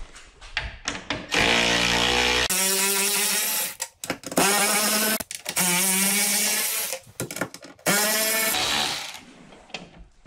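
Cordless electric ratchet running in several long bursts with short pauses between, spinning out the T40 roof bolts on the back of a Polaris Ranger UTV.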